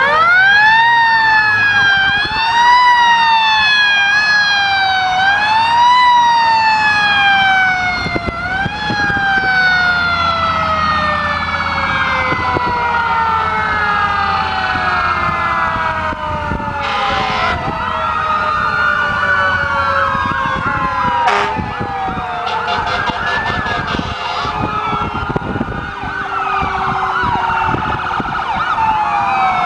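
Several fire truck sirens wailing at once, each rising and falling in pitch out of step with the others. At first one siren dominates, sweeping up quickly and falling more slowly about every two seconds; after that come long falling glides as more sirens overlap.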